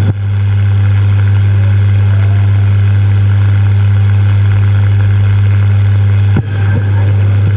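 Loud, steady low electrical hum from the hall's public-address system, a buzz that stays at one pitch while nobody speaks. A click sounds at the start and there is a brief dropout with a click about six and a half seconds in.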